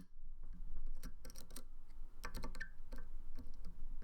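Hook pick probing and lifting the pin stacks of a cylinder lock held under tension: irregular small metallic clicks and light scrapes as the pins are pushed and set.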